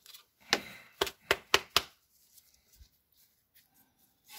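A quick run of sharp clicks and knocks, about five in just over a second, as the plastic cover of the brake pad sensor's connector box is pushed back on.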